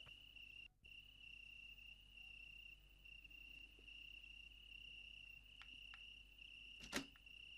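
Faint chorus of crickets chirping in a steady high trill, with a single sharp click near the end.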